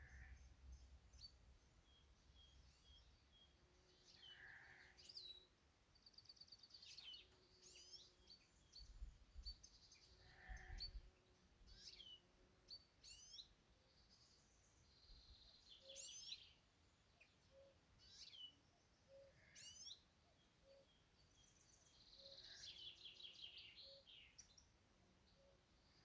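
Faint garden birdsong: several small songbirds calling and singing in short rising and falling phrases and quick trills, scattered through, with a few low rumbles around the middle.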